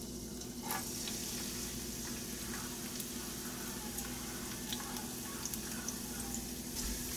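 Chopped garlic sizzling in hot cooking oil in a frying pan, a steady hiss that picks up about a second in as more garlic drops in, with scattered small pops. Near the end a silicone spatula stirs it around the pan.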